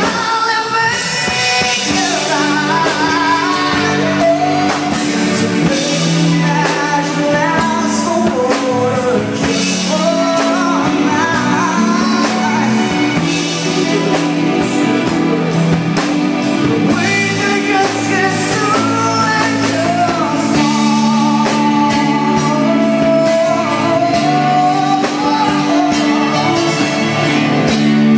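Live band playing a song: a singer's melody over electric guitars, drum kit and keyboard, continuous throughout.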